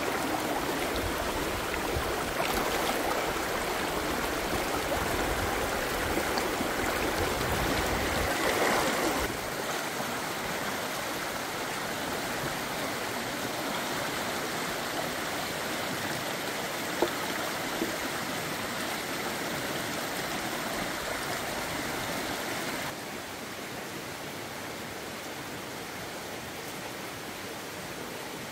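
Steady rush of running water, dropping a step in level about ten seconds in and again a few seconds before the end, with a couple of small knocks in between.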